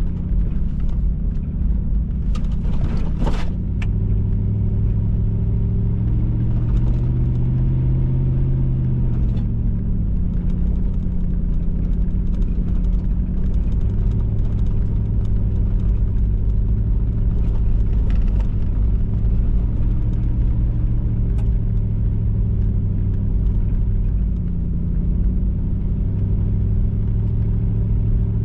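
Vehicle engine and road rumble heard from inside a moving truck, the engine note rising and falling with the throttle. A brief sharp sound comes about three seconds in.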